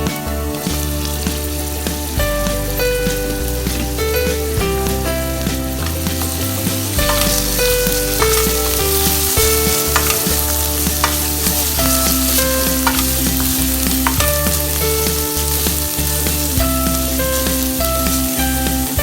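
Food sizzling as it fries in a pan, with the clicks and scrapes of stirring now and then. Background music with a bass line plays throughout.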